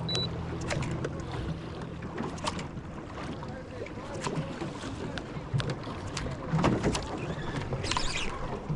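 Swell water lapping and slapping against an aluminium boat hull, with scattered knocks and a couple of louder slaps near the end. A low hum fades out about two seconds in.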